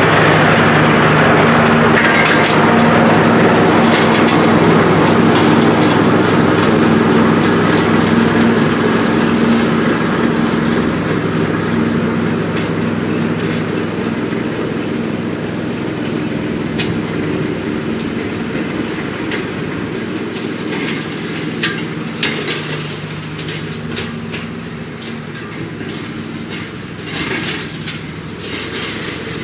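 The Briggs & Stratton 24 HP V-twin engine of a Craftsman T3000 ride-on mower running steadily while it cuts and mulches grass, growing gradually quieter over the second half. Scattered sharp clicks and cracks sound over it in the later part.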